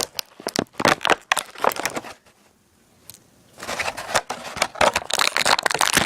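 Plastic toy packaging crinkling and crackling as it is handled and pulled apart: scattered crinkles over the first two seconds, a short pause, then a dense stretch of crinkling in the last couple of seconds.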